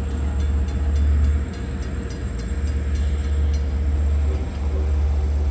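LIRR diesel locomotive running as it pulls away through a grade crossing, with the crossing warning bell ringing in quick, even strokes. A heavy, gusting low rumble of wind on the microphone lies over it.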